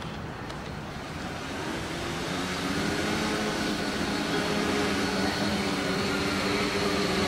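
Four small motors and propellers of a homemade quadcopter running, a steady hum that grows louder over the first few seconds as the craft lifts off the ground.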